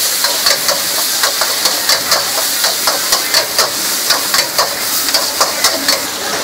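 Noodles and greens stir-frying in a wok: a metal spatula scrapes and clanks against the wok about three or four times a second over a steady sizzling hiss.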